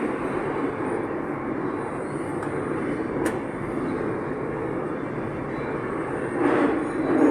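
Metro train running between stations, a steady rumble and rolling noise heard from inside the car, with a sharp click about three seconds in and a brief swell near the end.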